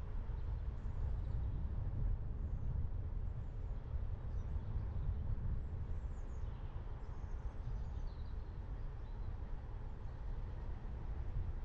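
Car driving steadily: a low, even rumble of road and wind noise, with a few faint, high bird chirps over it in the middle.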